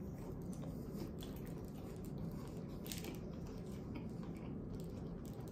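A person biting into and chewing a hand-breaded fried chicken sandwich, heard as faint, scattered chewing clicks and squishes close to the microphone.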